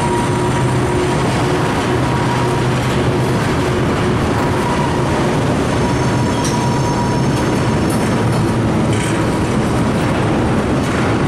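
Freight tank cars rolling past on the rails, wheels rumbling steadily, with faint high wheel squeals about halfway through.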